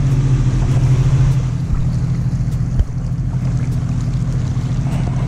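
A motor boat's engine running at a steady low drone as the boat moves through the marina. One short knock comes near the middle.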